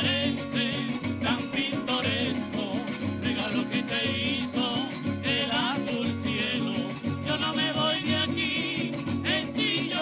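Golpe tocuyano, traditional Venezuelan music from Lara state, played by a string ensemble of cuatros and other plucked strings over a steady, repeating drum beat.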